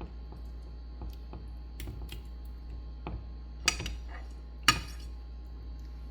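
A metal utensil tapping against a skillet of cooking shrimp: light taps, then two sharp clinks about a second apart past the middle, over a steady low hum.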